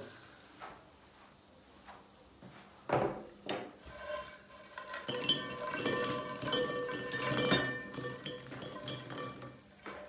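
Fried bread cubes tipped from a frying pan onto a plate, rattling and clinking as they tumble onto it, after two short knocks about three seconds in.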